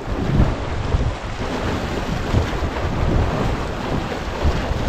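Strong wind buffeting the microphone over sea waves washing and breaking against rocks, in irregular low gusts.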